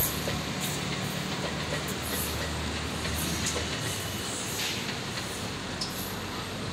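Mumbai suburban electric local train (EMU) running along the track: a steady rumble of wheels on rail with scattered clicks, and a low hum that drops away about four seconds in.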